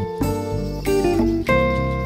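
Instrumental passage of a Neapolitan song arrangement, with plucked string notes and no singing.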